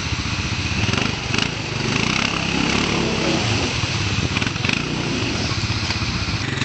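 ATV engine running at low revs with a rapid, steady firing beat as the quad is worked over a rock ledge in a stream, with a few brief knocks about a second and a half in and again near the middle.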